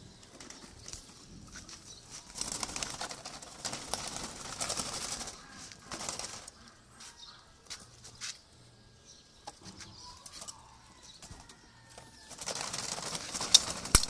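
Caged doves and pigeons flapping their wings in bursts, first about two seconds in and again near the end, with soft cooing in between.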